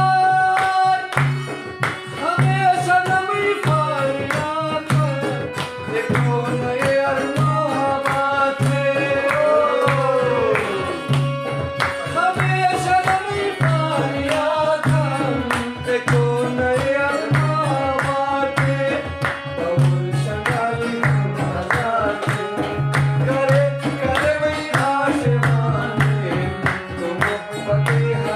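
Live folk music: a harmonium with a man's voice singing over it, a hand drum keeping a steady beat underneath, and a long-necked lute.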